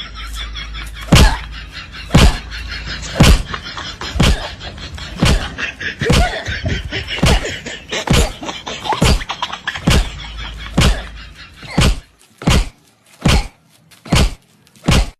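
Heavy thuds about once a second over faint background music, then four separate thuds with quiet between them near the end. They are the sound of a man slamming his backside down onto a concrete post.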